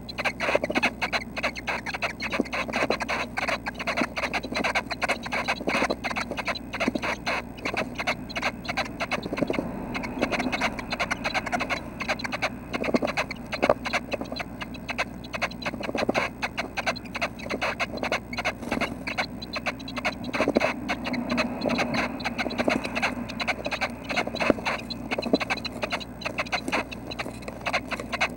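Red-breasted nuthatch nestlings shifting about in the nest, a continuous busy rustling and scratching with many small clicks, heard close up inside the nest cavity.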